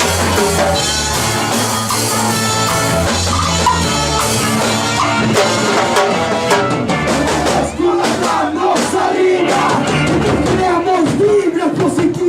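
Live ska-punk band playing loud, with drum kit, guitar and bass. About five seconds in the bass drops away and shouting, singing voices take over over thinner playing.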